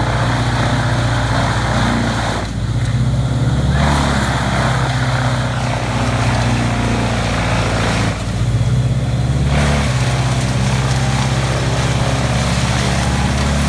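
Vermeer BC2000XL brush chipper running, its engine steady under a loud rushing, grinding noise that drops away twice for about a second each time.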